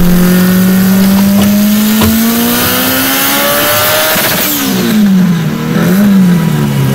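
Car engine accelerating hard, its pitch climbing steadily for about four seconds, then dropping, rising once more and falling again.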